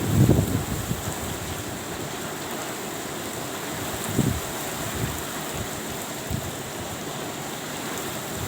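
Steady hiss of rain and wind, with gusts of wind buffeting the microphone at the start and again about four seconds in.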